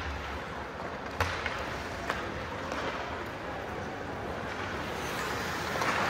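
Ice hockey rink ambience: a steady hiss with a few sharp clacks about one and two seconds in, and a brief swell of the hiss near the end.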